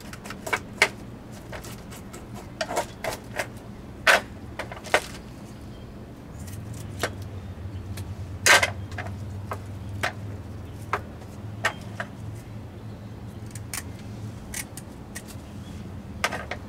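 Irregular scraping and sharp clicks of bluegills being cleaned on a plastic cleaning board: a knife scraping the fish and kitchen shears snipping through them, a few snips much louder than the rest. A steady low hum runs underneath and grows louder about six seconds in.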